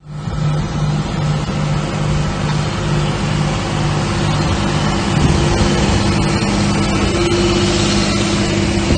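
Large green-and-yellow John Deere farm tractor's diesel engine running steadily under load while towing a tracked armoured vehicle, with a low hum that pulses a little under twice a second.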